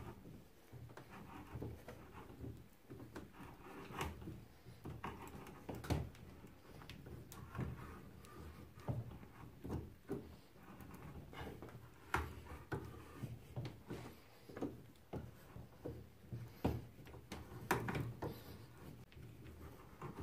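Hand threading tools in use: irregular metallic clicks, knocks and scraping as a tap wrench and tap are handled and turned back and forth to cut a thread in metal.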